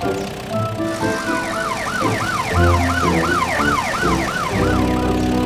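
Cartoon police car siren sounding in quick up-and-down sweeps, about three a second, starting about a second in and stopping near the end, over background music.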